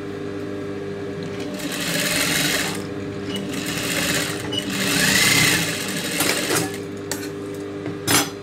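Industrial sewing machine stitching a seam along fabric, over the steady hum of its motor, with louder runs of stitching about two and five seconds in. A sharp click near the end.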